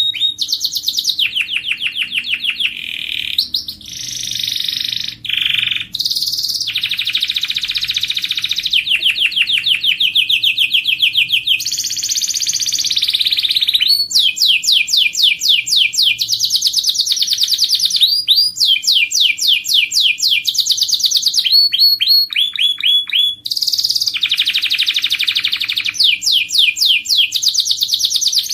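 Domestic canary singing continuously: a chain of rapid trills, each a run of quick repeated notes held for a second or two before switching to a different run, with a few brief breaks.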